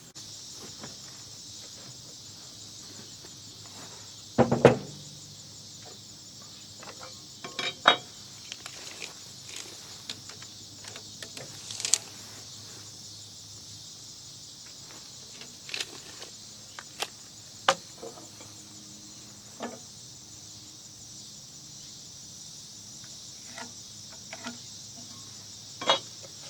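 Steady high-pitched insect chorus, with scattered short knocks and clicks from work going on close by. The loudest double knock comes about four and a half seconds in.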